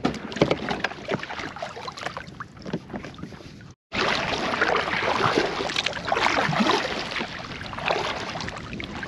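Double-bladed kayak paddle strokes: the blades dipping and splashing in lake water in an irregular rhythm, with some wind on the microphone. The sound breaks off briefly just before the four-second mark.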